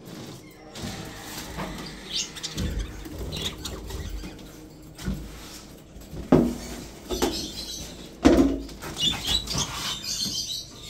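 Budgerigars chirping and chattering in short high calls, over knocking and rustling from the cages being handled, with two loud thumps a little past the middle.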